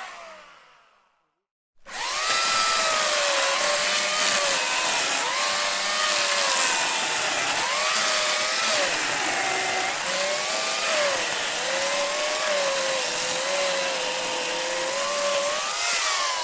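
Handheld electric saw cutting wood. A previous run spins down with a falling whine and goes quiet. About two seconds in, the saw starts abruptly and runs with a high whine whose pitch repeatedly sags and recovers as it bites into the wood. It spins down again at the very end.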